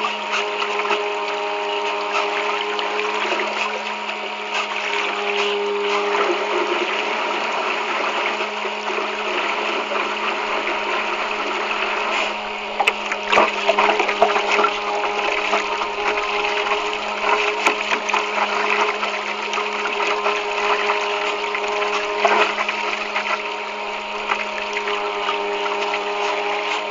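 Homemade bait boat's small electric motors running steadily with a constant hum, mixed with water rushing past the hull, heard from a camera mounted on the boat. A few knocks and splashes come about halfway through.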